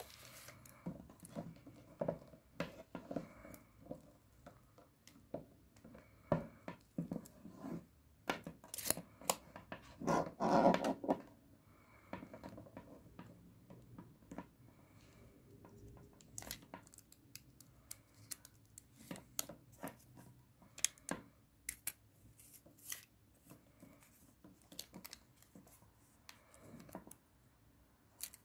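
Scattered handling noises: clicks, taps and short rustles as objects are picked up and moved by hand, with a louder rustling scrape about ten seconds in.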